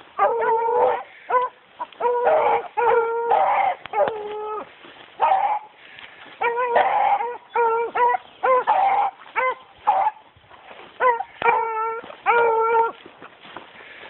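Beagles baying on a rabbit's track: a run of about a dozen loud, pitched hound bawls and shorter chops, coming in quick bouts, sometimes with two voices overlapping.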